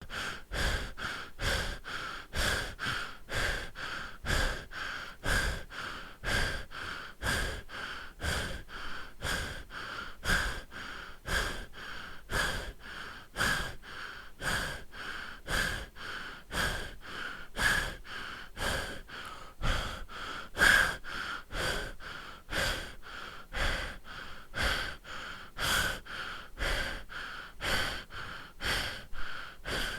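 A person breathing heavily through the mouth: loud, regular in-and-out rushes of air, about one breath cycle a second, that keep on without a break.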